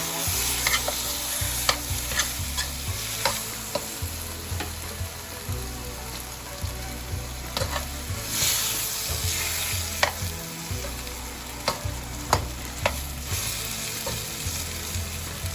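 Chicken pieces sizzling in hot oil and curry in a pot as they are stirred, with a spoon clicking against the pot at irregular moments.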